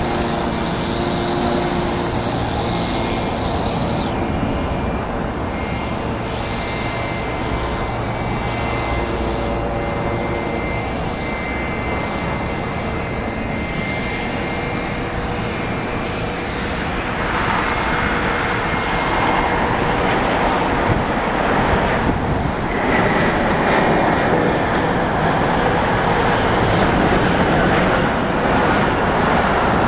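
Boeing 787-9 jet engines on a landing, a steady roar with a thin high whine. It grows louder and fuller about halfway through as the airliner touches down and rolls out on the runway.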